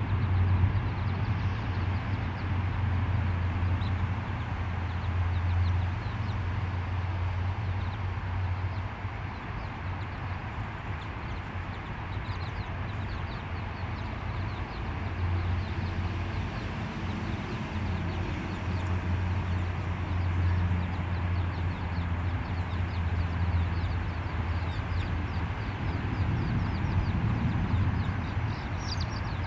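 Free-roaming chickens clucking softly while foraging, over a steady low rumble.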